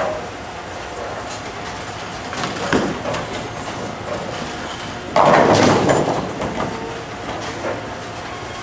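Bowling ball rumbling down a wooden lane, then a loud clattering crash of pins about five seconds in. A steady rumble of balls and pins from other lanes runs underneath.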